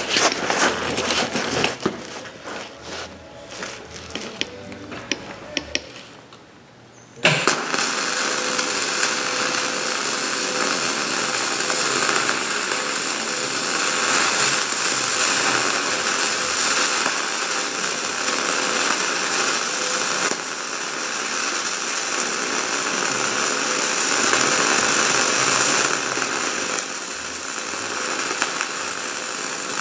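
MIG (wire-feed) welding arc laying a continuous bead on a steel forwarder blade: a steady sizzling crackle that starts about seven seconds in and holds to the end. Before it come a few seconds of scattered clicks and knocks.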